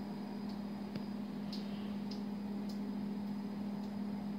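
Steady low mechanical hum at one pitch, with a few faint clicks from about the middle on.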